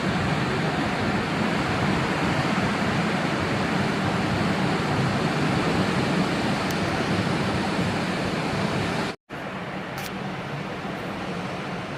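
Sea surf washing steadily against the shore, a continuous hiss-like wash with no distinct breaks. About nine seconds in, the sound cuts out abruptly for a moment at an edit, then resumes slightly quieter.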